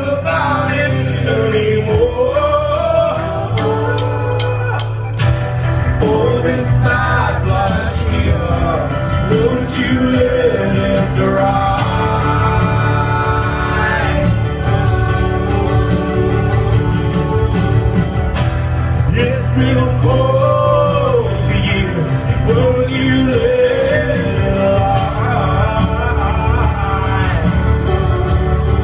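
Live band playing a song with male singing: keyboards, acoustic guitar and drums under a sung melody, over steady low bass notes.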